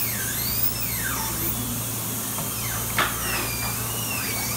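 Dental high-speed handpiece (dental drill) whining, its high pitch rising and falling several times, with a sharp click about three seconds in. A low steady hum runs underneath.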